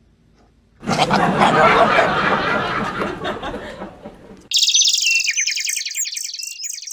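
A goat giving a loud, rough, drawn-out bleat lasting about three and a half seconds. About four and a half seconds in it gives way abruptly to high, rapid chirping.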